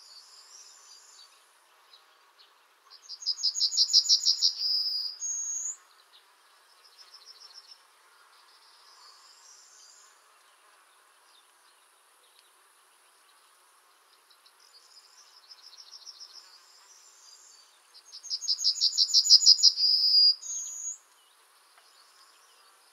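Yellowhammer singing: two songs about fifteen seconds apart, each a fast run of repeated high notes lasting about two and a half seconds and ending in a short, higher note. Fainter bird song phrases fall between them.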